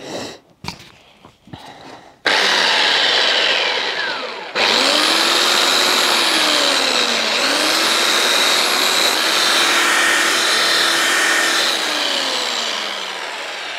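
Hand-held electric sander starting up about two seconds in and running steadily as it sands the rough edges of a small plywood and oak piece, the motor's pitch sagging and recovering as the work is pressed against it.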